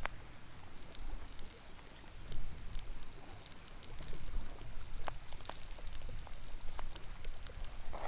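Chopped onions crackling in a frying pan on a Trangia stove, with irregular taps of a pocket knife cutting mushrooms on a plastic cutting board.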